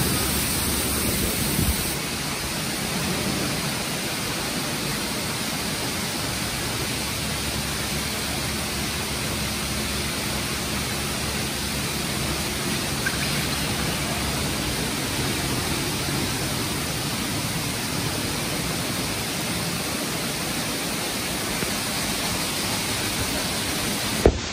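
Istobal M'NEX 22 rollover car wash running, with water spraying over a foam-covered car in a steady rushing hiss. A sharp click comes near the end.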